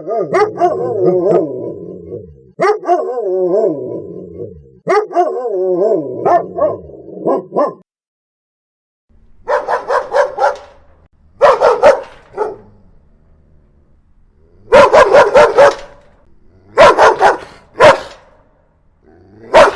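Angry dogs barking and snarling. For the first few seconds the calls are drawn-out and wavering. After a short silence about eight seconds in, rapid volleys of sharp barks come in bursts of three to six.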